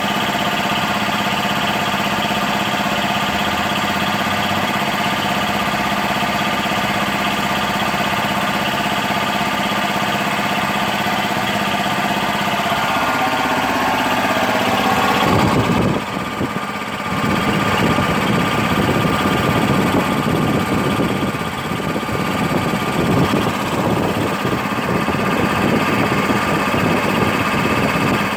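1990 Bauer compressor running steadily while filling a tank. About halfway through its sound changes abruptly, dipping briefly, then carries on rougher and more pulsing.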